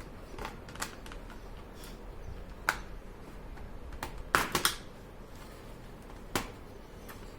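Plastic snap clips of a laptop's bottom case clicking loose as it is pried open with fingernails: scattered sharp clicks, the loudest a quick run of three about halfway through.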